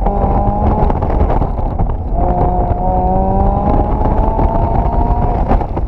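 2016 Mazda MX-5 Miata's four-cylinder engine running near its redline in second gear under full throttle. Its pitch fades briefly about a second in, then climbs steadily as the car accelerates, over wind and road rush in the open cockpit.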